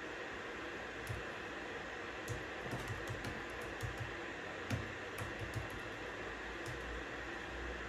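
Typing on a computer keyboard: irregular keystroke clicks starting about a second in, over a steady hiss of white noise.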